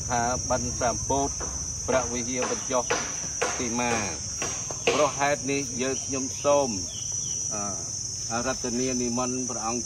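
Steady, high-pitched insect chirring, with a voice talking over it.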